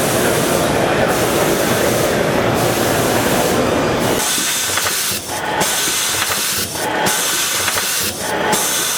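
Colombi C413T in-line CNC spring coiling and delivery system running its cycle: a loud, steady hiss broken by short dips about every second and a half. A deeper rumble under it cuts off about four seconds in, leaving the hiss and the repeating cycle.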